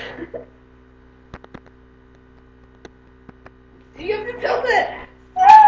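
Steady electrical hum with a few faint clicks, then a person's voice cries out about four seconds in, followed near the end by a loud, high-pitched held shriek.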